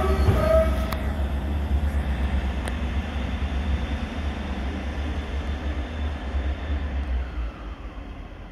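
Class 158 diesel multiple unit moving off, its diesel engines giving a low, pulsing rumble that fades as the train draws away. A brief high-pitched squeal sounds in the first second.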